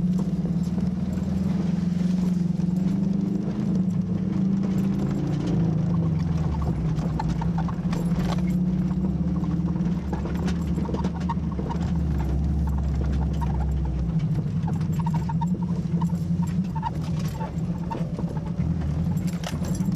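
Subaru flat-four engine running under load, heard from inside the cabin while driving over a rough dirt field, with scattered knocks and rattles from the body as it hits bumps. The deepest part of the engine drone drops away about two-thirds of the way through.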